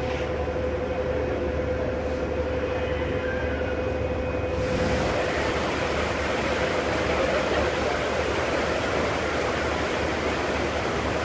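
A ferry's engine running with a steady low drone and a constant hum, under a rush of wind and water. About four and a half seconds in, a louder rushing hiss joins in and stays.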